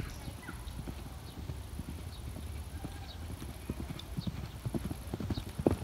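Horse's hooves beating on a sand arena, with many dull thuds that grow louder near the end.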